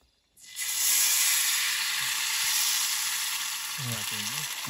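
Rice-flour roti batter sizzling in a hot pan, starting suddenly about half a second in as it goes into the pan, then frying with a steady hiss.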